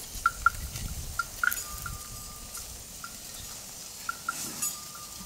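Small bell clinking irregularly, a few high strikes at a time at one pitch, with a held ring twice. There is a soft rustle underneath.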